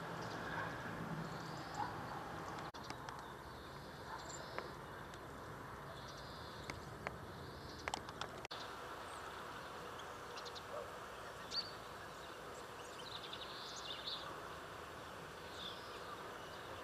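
Scattered short chirps and calls of small songbirds over a steady outdoor background hiss, with a couple of brief clicks about halfway through.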